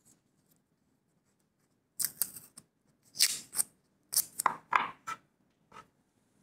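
Masking tape being pulled off its roll in a series of short rips, starting about two seconds in, with one last short rip near the end.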